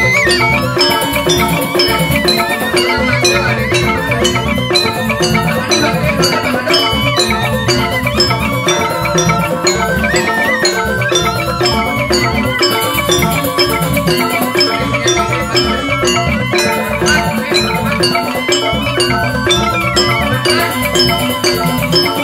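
Balinese joged bumbung gamelan playing a steady rhythmic piece: mallet-struck bamboo xylophones ringing over kendang hand drums.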